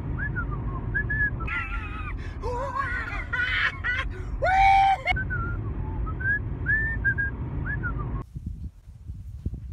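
A man whistling a tune in short rising notes over the steady low road noise of a moving car heard from inside the cabin. A little after a second in he breaks into loud voice sounds that end in a long held note around four and a half seconds, then goes back to whistling. The road noise cuts off abruptly near the end.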